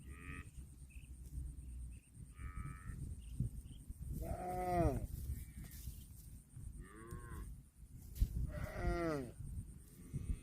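Cattle mooing, about five calls, each arching up and falling off in pitch. The loudest comes about four seconds in, and the first two are shorter and higher. A low rumble runs underneath.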